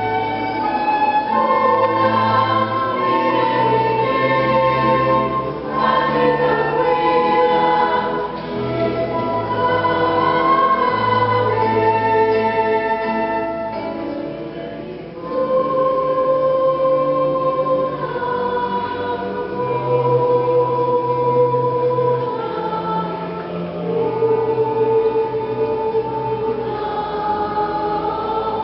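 Choir singing a Nahuat-Pipil song in long held notes over instrumental accompaniment. The music eases off briefly about halfway through, then swells back.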